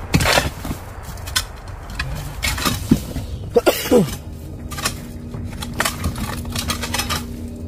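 Scattered knocks and scrapes of hand tools digging in earth, with a short falling whine about three and a half seconds in and a steady low hum through the second half.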